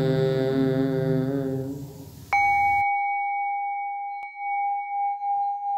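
A long chanted seed-sound tone from a group fades out about two seconds in. Then a bell is struck once and rings on with a clear steady tone whose level slowly wavers.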